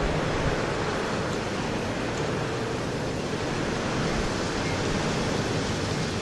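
A steady, unbroken noise with a faint low hum beneath it, like a distant airplane but not passing: the unexplained night-time noise that went on for about four hours without stopping.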